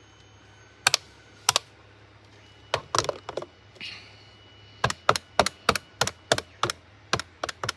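Plastic keypad buttons of a VTech landline phone clicking as they are pressed: two single presses, a quick cluster about three seconds in, then a steady run of about a dozen presses at roughly three a second.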